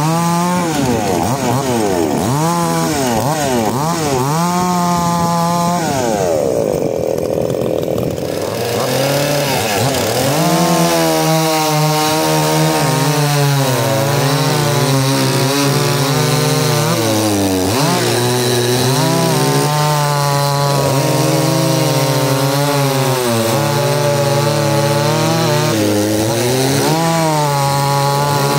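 Two-stroke chainsaws cutting wood, the engine note rising and falling as the throttle is worked and the chain bites. About six seconds in it eases to a smoother, lower note for a couple of seconds, then runs high and steady under load again.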